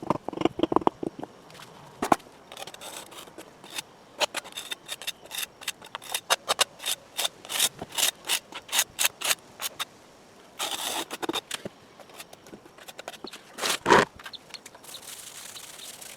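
Hand tool scraping in short, even strokes, about two a second, through the middle stretch, with a longer rasping stroke a little past halfway and one loud knock near the end.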